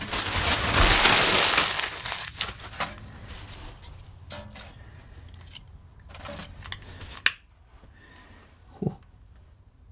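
Paper being crumpled and stuffed into a small wood-burning stove's firebox, then thin kindling sticks laid on it with light clicks and knocks. One sharp click a little after seven seconds in, as a long lighter is sparked to light the first fire.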